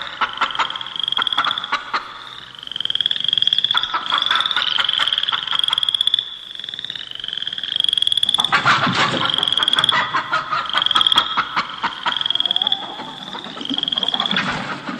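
Frogs croaking from an electronic keyboard's sound-effect voice: rattling croaks in several bursts over a short high chirp repeated about twice a second.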